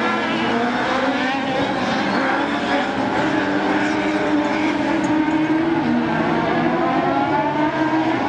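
Several autocross buggy engines racing on a dirt track at once, overlapping, their pitch rising and falling as they accelerate and change gear.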